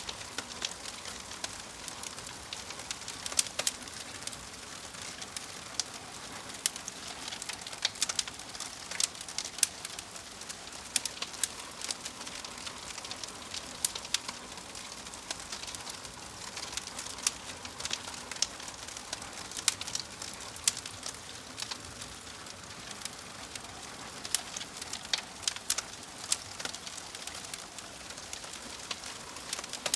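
Log fire crackling in a fireplace: a steady hiss with frequent, irregular sharp pops, a few of them clearly louder.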